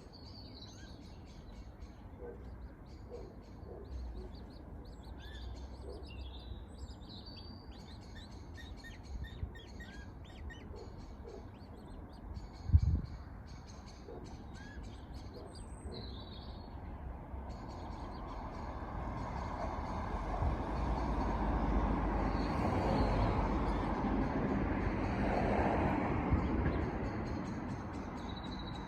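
Birds chirping and tweeting in short repeated calls, with one sharp thump a little before halfway. In the second half a broad rushing noise swells and fades again, covering the chirps.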